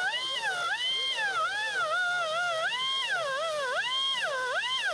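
Hand-held rotary grinder with a black abrasive disc grinding the cut-off stud stub flush on an aluminum hood panel. Its high whine sags in pitch as the disc is pressed onto the metal and climbs back when eased off, over and over.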